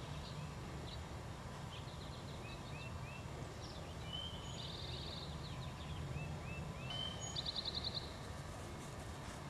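Small birds calling: scattered short chirps and slurred notes, a quick buzzy trill about halfway through and a louder rapid trill later on, over a steady low rumble.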